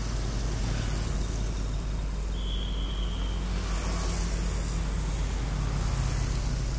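Road traffic on a wet street: a steady low rumble with tyre hiss that swells a little about four seconds in. A short, steady high-pitched tone sounds about two and a half seconds in.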